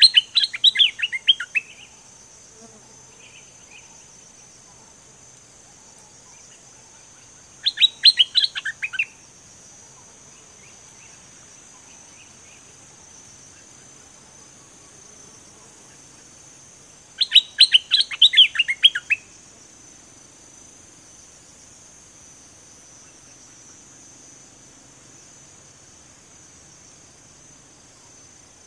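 A caged stripe-throated bulbul singing three short bursts, each a quick run of sharp notes falling in pitch, about eight to ten seconds apart. A steady high insect drone runs underneath.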